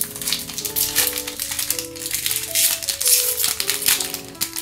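Upbeat background music with a plucked melody, over a dry, irregular crinkling rattle of Pokémon card packs and cards being handled and opened.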